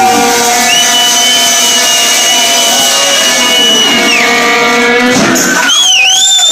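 Live band with guitars and banjo holding out a long sustained chord. A high steady tone sits over it for a few seconds, and near the end there is a high whistle that dips down and back up.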